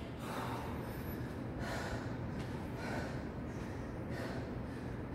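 A man breathing hard from physical exertion: a series of heavy, gasping breaths in and out.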